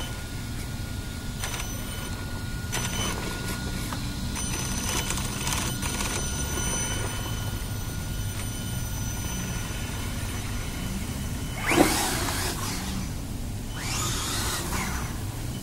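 Brushless electric motor and drivetrain of a 1/16-scale Traxxas Summit RC truck whining steadily as it crawls over a sandy ledge. About twelve seconds in, the whine jumps to a loud burst with a sweeping pitch as the truck accelerates away, with a second burst a couple of seconds later.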